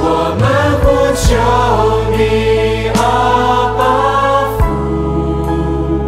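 Christian worship song: a melody in short rising-and-falling phrases over steady, sustained bass notes, with the bass shifting to a new note near the end.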